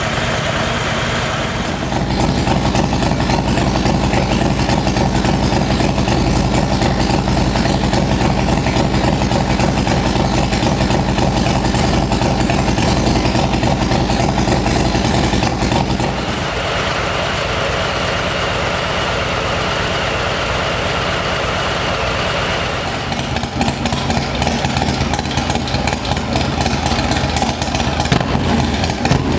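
Harley-Davidson Low Rider ST's Milwaukee-Eight 117 V-twin running at idle through its exhaust. The sound shifts abruptly about two seconds in and again about sixteen seconds in, and the loudness turns uneven in the last few seconds.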